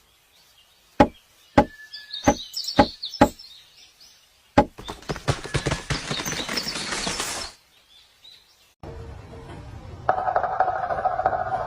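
Woodpecker pecking at wood: five separate sharp knocks with faint bird chirps above them, then a rapid drumming roll of knocks lasting about three seconds. After a short break a different, steady sound with a held tone over a low rumble comes in.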